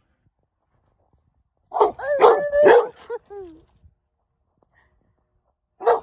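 American bulldog barking excitedly: a run of three or four loud barks that bend in pitch, about two seconds in, and one short bark near the end.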